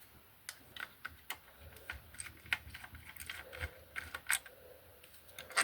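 Scattered light clicks and taps of model parts being handled as a piece is taken off a scale model car.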